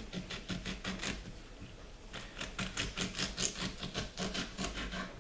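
Leftover lemon peels being squeezed and handled by hand: quick runs of soft rubbing and scratching, several strokes a second, with a short lull partway through.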